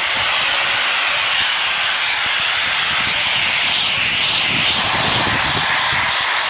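Pressure washer's high-pressure water jet spraying against the stone and concrete of a monument, a loud, steady hiss that swells slightly about four seconds in.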